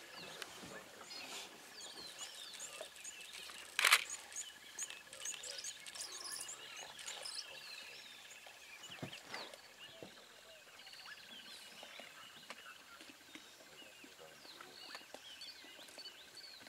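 Bush ambience: many small bird chirps over a steady high buzzing trill, with a single sharp crack about four seconds in.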